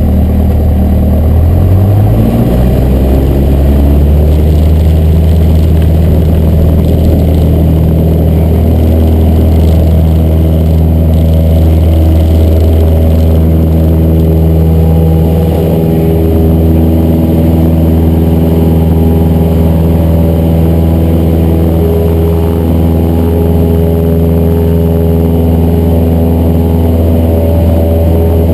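Cessna 172's piston engine and propeller running, its pitch rising over the first couple of seconds as power comes up, then holding a steady drone.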